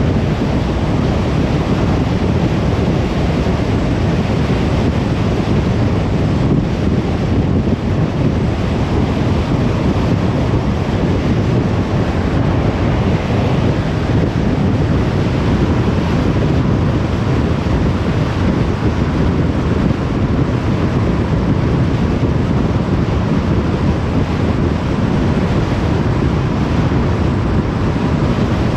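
Steady rush of tyre and wind noise from a car driving at motorway speed.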